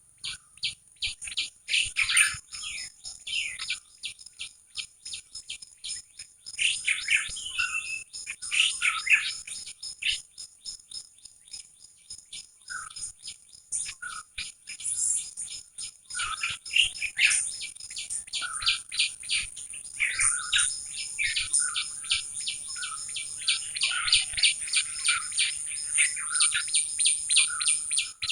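Small wild birds chirping, many short rapid calls overlapping and busiest in the second half, over a steady high-pitched whine.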